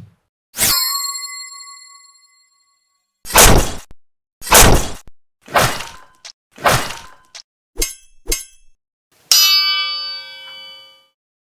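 A run of sword sound effects: a metal blade struck and ringing out for a couple of seconds, then four short sharp hits, two quick clicks, and a second ringing metal clang that dies away.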